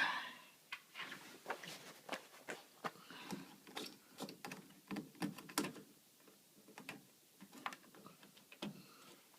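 Irregular clicks, taps and knocks from hands-on work at a front-load washer, opening with one sharp knock and then a busy run of short clicks that thins out near the end.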